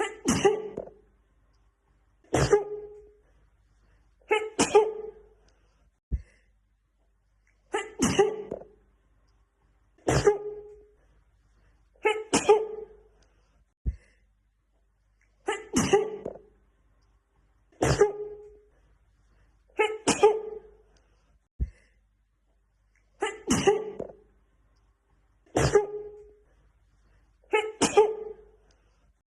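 A woman sneezing over and over, one sneeze about every two seconds, in sets of three. Each sneeze is voiced with a noisy burst. A brief click falls between the sets, where the edited clip loops.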